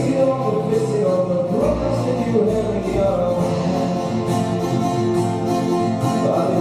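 Small acoustic band playing a pop cover: strummed acoustic guitar, double bass, drums and keyboard, with a violin carrying a wavering melody line over them.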